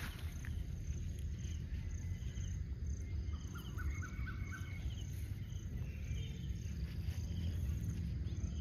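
Insects and birds chirping in short scattered calls over a steady low rumble, with a quick run of about five short rising chirps around three to four seconds in.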